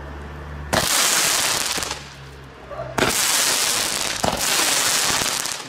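Shots from a Veko Eruption 14 mm fountain-pot (Feuertopf) firework battery, which has no bursting charges: each shot is a sharp pop followed by a long rush of sparks. Shots come about a second in, about three seconds in, and again at the very end.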